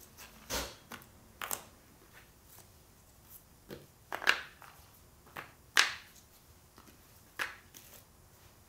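Macaron shells being picked up and set down on a Teflon sheet over a metal baking tray: a scatter of light, irregular taps and clicks, two of them louder a little past the middle.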